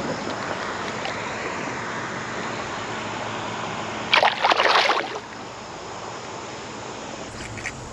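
Steady rushing of river water, with a loud burst of splashing about four seconds in that lasts about a second.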